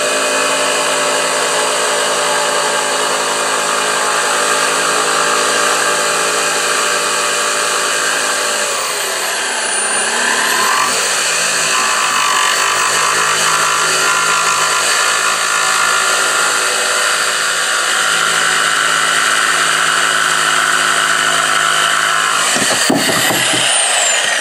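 DeWalt corded jigsaw running steadily with a laminate blade, cutting through a laminate countertop from its particleboard underside. Its motor pitch sags and recovers about ten seconds in. Near the end the motor stops, its whine falling away.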